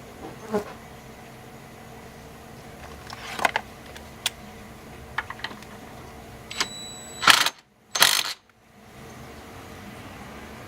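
Scattered light metallic clicks and clinks of small steering-hub parts and tools being handled. About seven seconds in come two loud rustling bumps close together, with brief drops to silence around them.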